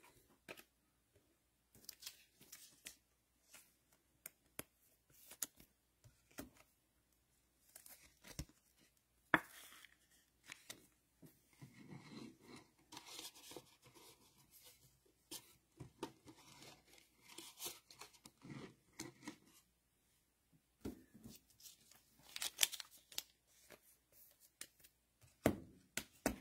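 Plastic trading-card pack wrappers crinkling and tearing as packs are handled and opened, with cards being set down: soft scattered rustles and clicks.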